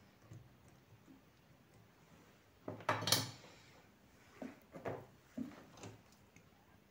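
Soldering iron pulled from its coiled wire stand, with a metallic rattle about three seconds in, followed by a few light knocks and taps as it is handled.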